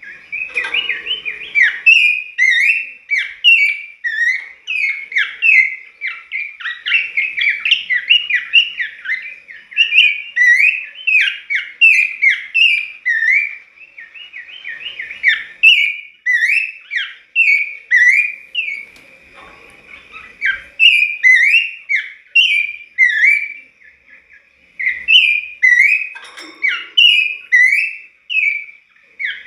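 Horsfield's babbler (pelanduk semak) singing in full voice: a fast, unbroken run of short, clear whistled notes, each sliding up or down in pitch, broken by a few brief pauses.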